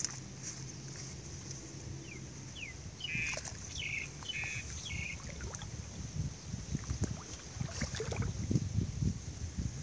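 Muddy water sloshing and wet mud squelching as hands dig and scoop around a PVC pipe in a flooded hole, busier in the second half. A bird chirps several times a few seconds in.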